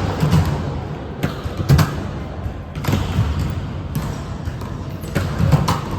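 Volleyball thudding as it is struck and bounces on a hard gym floor: several short thuds a second or more apart, over echoing hall noise.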